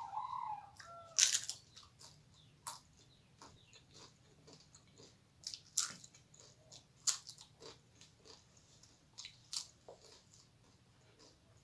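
Close-up crunching and chewing of crisp fried papad: a series of sharp, separate crunches every second or two, with softer wet mouth sounds between them.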